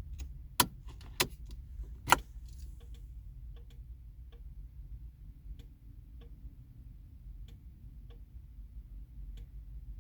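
Three sharp clicks in the first couple of seconds, then faint, irregular ticks in a car that won't start; no engine runs.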